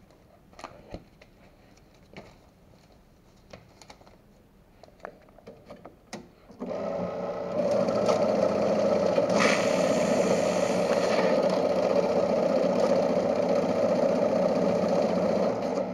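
Ribao BCS-150 banknote counting machine: a few light clicks as the note stack is handled, then about six and a half seconds in the machine starts feeding the notes through with a steady, fast whirring flutter that grows louder a second later. It is counting a mixed stack while checking each note for counterfeits.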